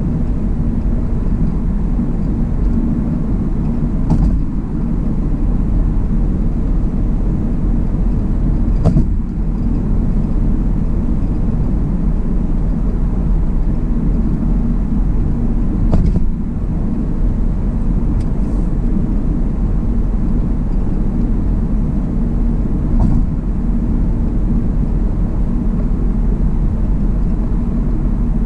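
Steady road and tyre noise of a car at highway speed, heard from inside the cabin as a low rumble. Four brief knocks break it, at about 4, 9, 16 and 23 seconds in.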